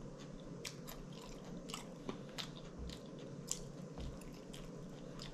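A person chewing food close to the microphone, mouth open, with a run of short wet lip-smacking clicks; the loudest comes about three and a half seconds in.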